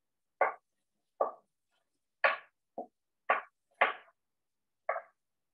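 Kitchen knife slicing a red bell pepper into strips, the blade knocking on the cutting board about seven times at an uneven pace.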